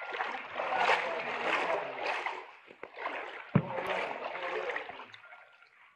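Floodwater sloshing and splashing around legs wading through it, in two long surges, with one sharp knock about three and a half seconds in.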